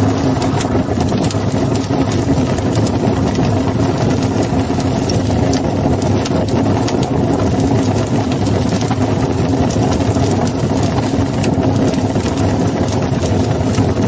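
A machine running steadily: a constant low hum under an even rushing noise, with no change in pitch or speed.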